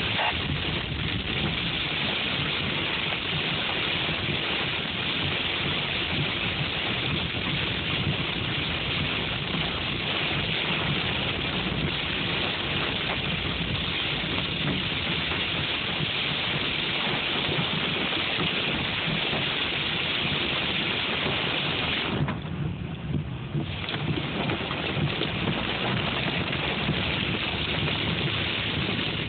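Hail and heavy rain pelting a car's roof and windshield, heard from inside the cabin as a dense, steady din. It eases briefly about three-quarters of the way through.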